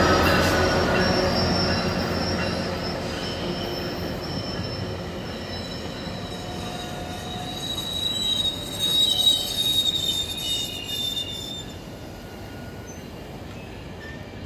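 GO Transit diesel locomotive and bilevel coaches moving past and away: the locomotive's engine drone fades over the first several seconds as the coaches roll by. A high-pitched wheel squeal rises about eight seconds in and lasts a few seconds before the sound settles to a low rumble of the passing cars.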